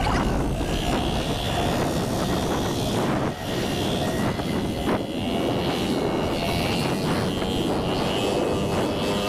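Small gasoline outboard motor running steadily, pushing an inflatable dinghy through choppy water, mixed with wind and water rushing and slapping against the hull.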